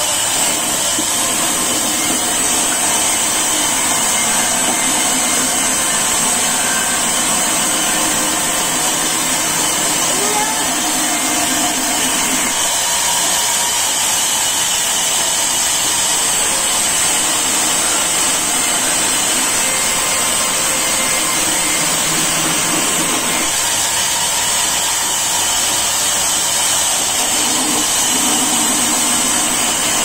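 Sawmill band saw running and ripping a timber plank lengthwise: a loud, steady mechanical noise with a constant high hiss. A lower hum drops out and returns several times as the cut goes on.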